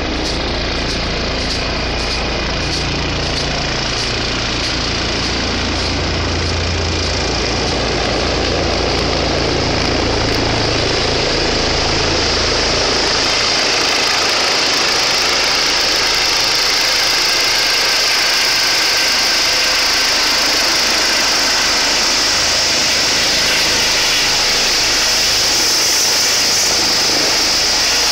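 Air ambulance helicopter approaching to land, its rotor and turbine noise growing steadily louder as it comes in and descends toward the helipad. A high whine comes up strongly in the second half.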